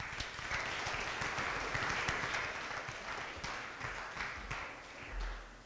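Auditorium full of middle-school students applauding, a dense patter of hand claps that dies away over the last couple of seconds.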